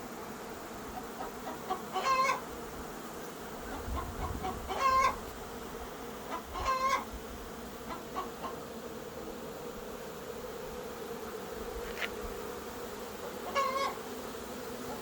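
Steady hum of a large swarm of honey bees flying around their hives, with chickens breaking in with loud, short clucking calls about five times.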